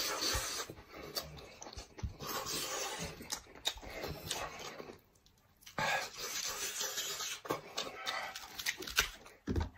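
Close-up eating sounds: the wet squelch and tear of braised head meat pulled apart by hand in thick chilli sauce, with chewing, lip-smacking and breathing, and many small irregular clicks. There is a pause of about a second near the middle.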